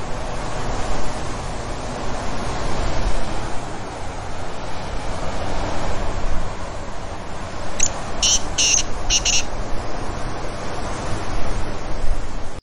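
Strong storm wind, a steady loud rushing roar that swells and eases. About eight seconds in there is a quick run of four or five short, high-pitched chirps.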